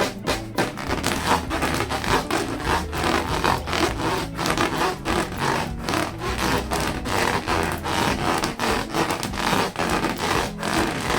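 Latex balloons rubbed by hand in quick, repeated strokes, a rapid rubbing and squeaking of rubber with a low steady musical bed beneath.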